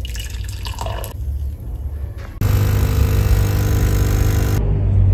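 Nespresso capsule coffee machine's pump buzzing loudly as it brews coffee, starting abruptly about halfway through and stopping shortly before the end. Before it come a few light clinks and scrapes.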